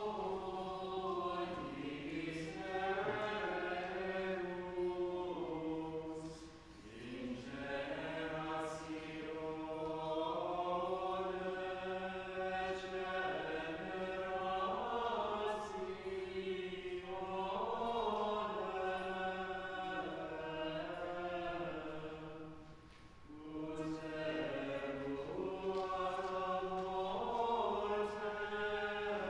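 Choir singing Latin plainchant as the entrance chant, in long phrases broken by two short pauses for breath, about six and twenty-three seconds in.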